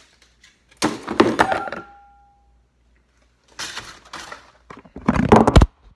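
A hard metallic clank that rings on briefly with a clear pitched tone, then a few seconds later two or three louder thuds and knocks, the last ones the loudest: a hammer being picked up and knocked about.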